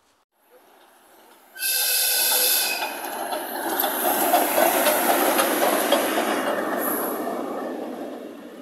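Soviet P36 steam locomotive passing close by. It cuts in suddenly with a high, multi-toned whistle blast lasting about a second, then the rolling noise and hiss of the engine and tender going by, fading near the end.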